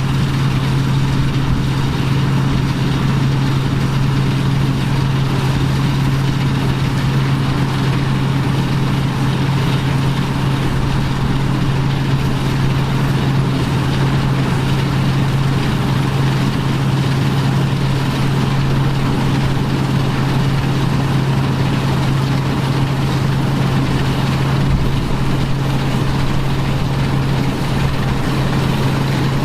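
John Deere 2140 tractor's three-cylinder diesel engine running at a steady speed, with a constant low hum.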